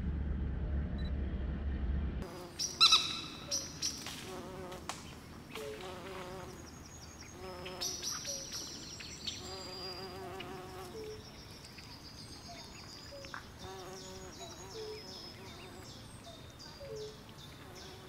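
Low rumble inside a car cabin for about two seconds, cut off abruptly. Then pond-side birdsong: many short high chirps and repeated lower wavering, buzzy calls, with a few sharp clicks about three seconds in.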